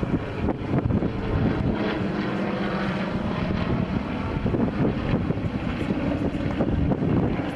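Piston engines of a formation of four propeller aircraft flying over, a steady droning hum.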